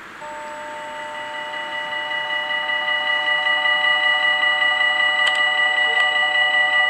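Electronic warning bells of a Dutch level crossing (Mini-AHOB) ringing rapidly as the crossing activates for an approaching train. They start just after the opening and get louder over the first few seconds, with two short clicks about five and six seconds in.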